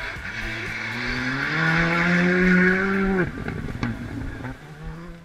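Rally car engine accelerating hard, its pitch rising steadily for about two seconds, then dropping away abruptly about three seconds in as the throttle comes off. A quieter engine note and a single sharp click follow.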